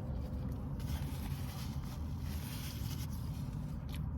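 Steady low rumble of a car cabin's background noise, with a few faint clicks near the end.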